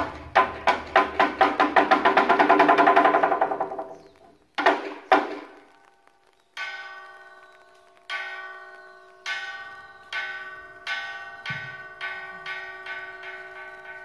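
Buddhist temple dharma drum (beopgo) beaten in a fast run of strokes that swells and then dies away, with two last strokes. After a short pause a hanging bronze cloud gong (unpan) rings out, struck with ever quicker strokes, each leaving a lingering ringing tone.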